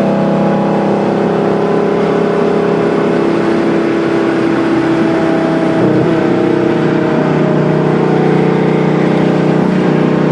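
Fiat Marea's five-cylinder engine running through a full 2.5-inch exhaust while the car drives, a steady loud drone. About six seconds in the pitch shifts and the lowest tone drops away briefly, then returns.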